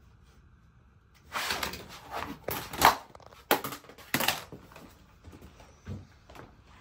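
Vinyl flooring planks and pieces being handled and slid over the subfloor: a run of short scraping sounds starting about a second in, the loudest near the middle, then a soft low thump near the end.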